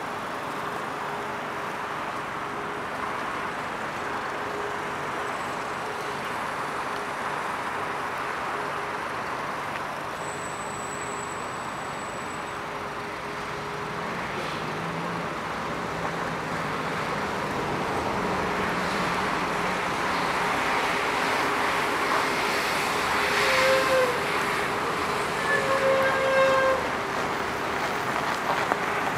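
Steady vehicle noise that grows a little louder in the second half, with two short horn-like toots near the end.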